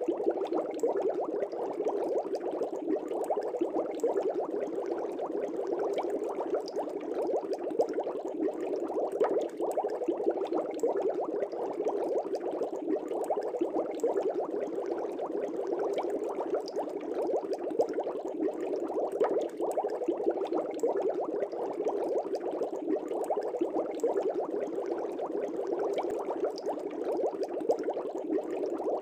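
Aquarium air bubbles rising and bursting at the water surface, a dense, steady bubbling with no pauses.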